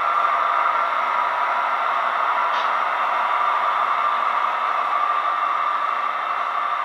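Model freight cars' wheels rolling along the track: a steady whirring hiss with a faint rattle, easing slightly near the end.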